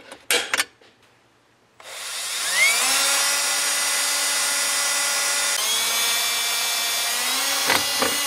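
Two sharp clicks from an automatic center punch marking the spot, then a cordless drill spins up about two seconds in, its whine rising in pitch and then running steadily as a twist bit drills a pilot hole through a steel bracket.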